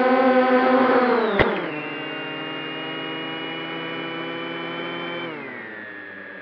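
MJX Bugs 6 brushless quadcopter's motors whining steadily. About a second and a half in there is a sharp knock as it touches down, and the pitch falls steeply as the throttle comes off. A lower, quieter whine holds, then drops again near the end as the motors spin down.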